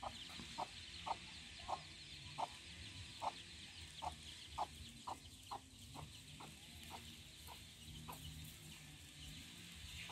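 A hen clucking faintly over and over, short single clucks about one to two a second, over a faint steady high hiss.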